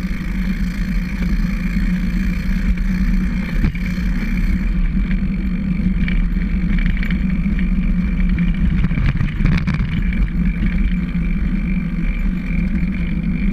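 Recumbent trike rolling along a concrete path: steady rolling and chain-drive noise picked up close to the front chainring.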